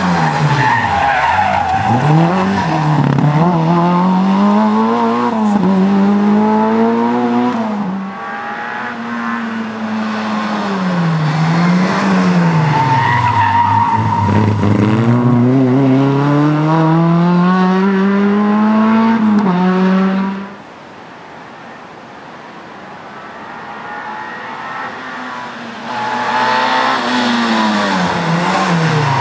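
Autobianchi A112 Abarth rally cars' small four-cylinder engines revving hard through a hairpin, the pitch climbing through the gears and dropping on lift-off and downshifts. About two-thirds of the way in the engine sound drops to a quieter, more distant running. A loud engine comes back near the end.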